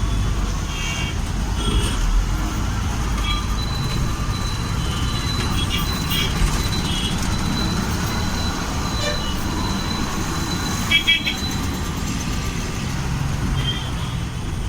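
Busy road traffic: vehicle engines rumbling steadily, with many short horn beeps and toots sounding again and again from different vehicles.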